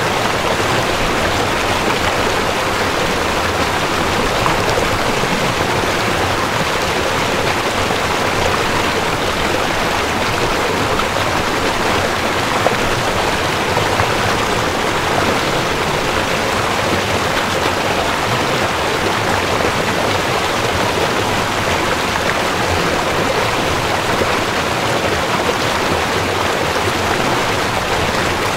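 Steady rushing of a shallow river running over stones, an even noise that does not change.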